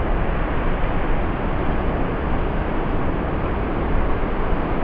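Wind buffeting the microphone: a steady, deep rushing rumble with no breaks.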